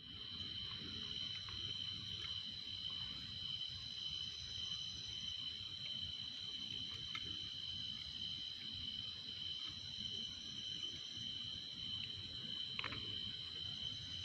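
Insects, such as crickets, trilling steadily in two unbroken high-pitched tones.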